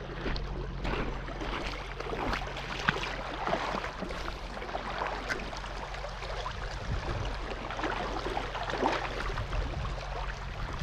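Shallow creek water splashing and sloshing, with many small irregular splashes over a steady rush.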